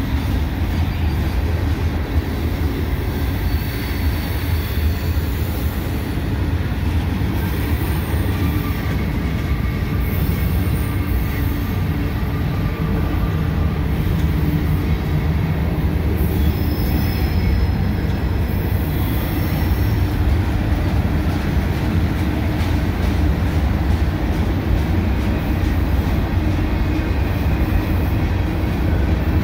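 Loaded freight cars, mostly tank cars, rolling past on steel wheels with a steady low rumble. Short high-pitched wheel squeals come and go several times as the wheel flanges grind through the curve of the wye.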